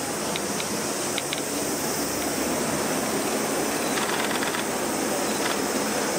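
Steady background noise of an indoor viewing hall, an even hiss with a few faint ticks near the start and again about four seconds in.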